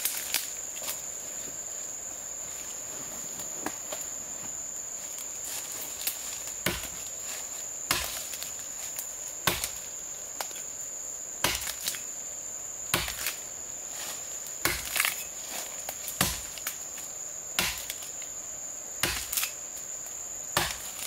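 Repeated strikes of a hand tool, roughly one every second and a half from about six seconds in, with lighter knocks before them, over a steady high insect drone.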